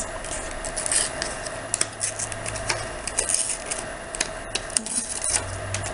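Paper backing being peeled off adhesive name-tag stickers: a run of small, irregular crackles and paper rustles.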